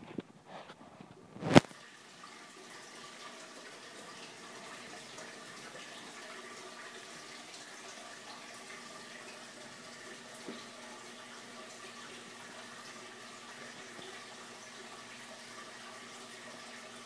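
Water running steadily through a reef aquarium's overflow and sump, with a faint hum underneath. A sharp knock about a second and a half in is the loudest sound.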